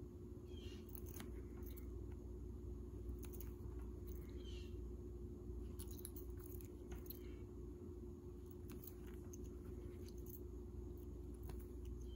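Faint rustling and small clicks of cotton fabric being handled and thread drawn through it during hand sewing of an overcast stitch, over a steady low hum.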